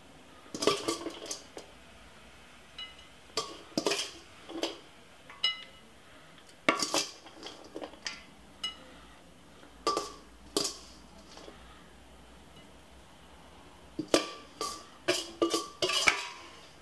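Metal serving utensil knocking and scraping against a stainless steel mixing bowl as spaghetti salad is tipped out of it. The clinks come in irregular clusters, each with a short ring of the bowl, with quiet gaps between.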